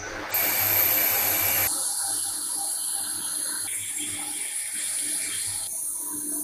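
CNC lathe turning a steel bar between chuck and tailstock centre: a steady hiss of cutting and spraying coolant. It starts just after the opening, is loudest for the first second and a half, then runs on a little quieter, its tone shifting in steps twice more.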